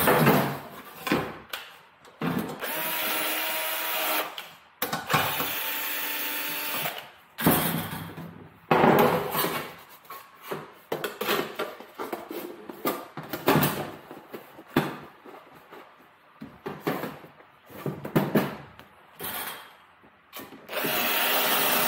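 Sheet metal duct pieces handled in a workshop: repeated knocks and clatter of the metal, with several stretches of steady rushing noise about two seconds long.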